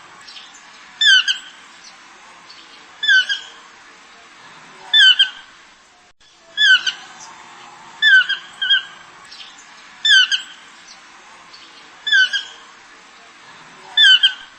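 A bird calling over and over: a short, loud, downslurred squawk about every two seconds, sometimes given twice in quick succession.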